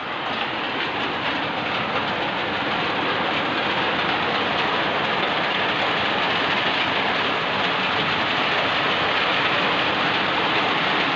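Heavy downpour: a loud, steady, dense rush of rain.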